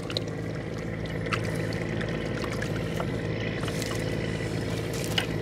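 A small boat's engine running steadily, with scattered small knocks and clicks over it.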